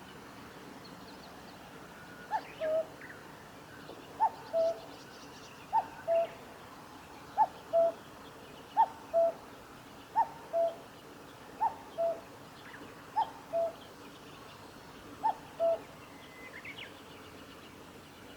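Common cuckoo singing its two-note "cuck-oo" call, the first note higher than the second, nine times about a second and a half apart, starting about two seconds in. Faint chirps of other small birds are heard near the end.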